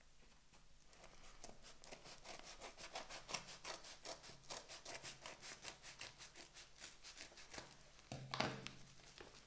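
Scissors cutting through a brown paper mailing envelope in quick, repeated snips, about four or five a second. Near the end comes one louder rustle as the cut envelope is handled.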